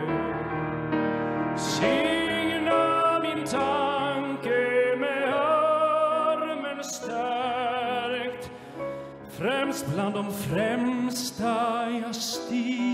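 A man singing a slow song with long held notes and wide vibrato, several phrases sliding up into their first note.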